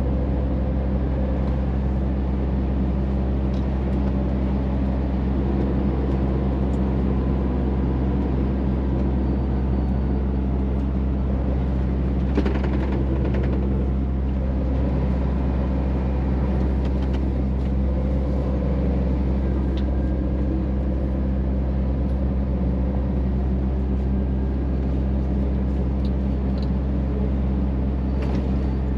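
Scania truck's diesel engine running steadily under way, a low even drone heard from inside the cab, mixed with tyre and road noise.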